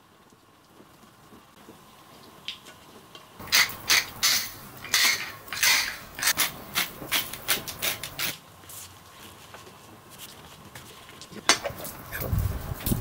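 Metal pepper mill being twisted to grind pepper: a run of quick, gritty rasps, about two or three a second, starting a few seconds in and lasting about five seconds. A sharp click comes near the end.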